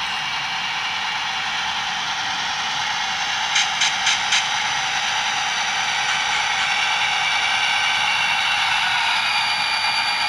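Soundtraxx Tsunami sound decoder in a model diesel locomotive playing a steady diesel engine sound through the model's small speaker, thin and without low end, getting a little louder past the middle as the train pulls away. Four quick clicks come about three and a half seconds in.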